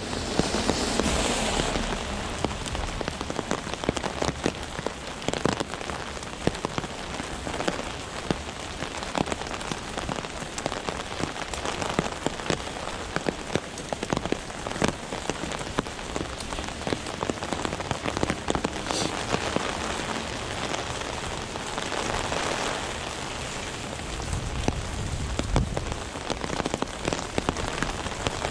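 Heavy rain pouring down and pattering on surfaces, with many sharp ticks of drops striking close by. A low rumble swells near the start and again near the end.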